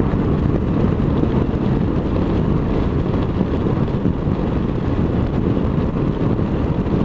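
Wind rushing over the microphone of a motorcycle under way at road speed, with the bike's engine running steadily underneath.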